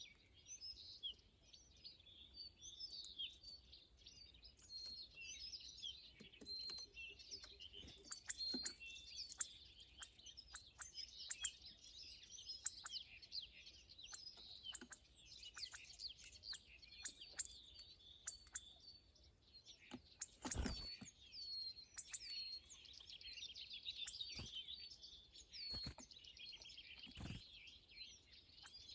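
Small birds chirping and twittering, many quick overlapping calls with no pause between them. A few sharp knocks come in the last third.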